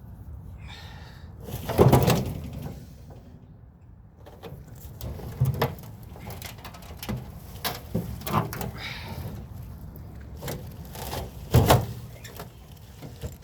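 Knocks, clunks and clicks from handling the metal casing and parts of a microwave being taken apart, with two loud clunks, about two seconds in and near the end.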